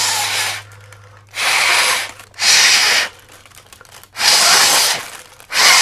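Puffs of breath blown into the mouth-hole of a Japanese paper balloon (kamifusen), inflating it: five loud blows of about half a second each, with short gaps between.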